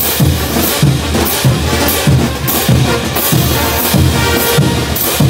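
Bolivian brass band playing a morenada: massed crash cymbals clash in unison on the beat, a little more than once a second, over bass drum, snare drums and low brass.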